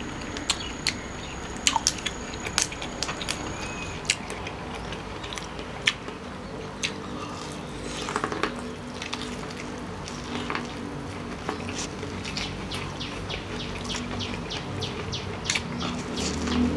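Eating sounds: chewing and wet lip smacks with many sharp little clicks, as crab meat and corn on the cob are eaten by hand, and a quick run of smacks near the end as fingers are licked.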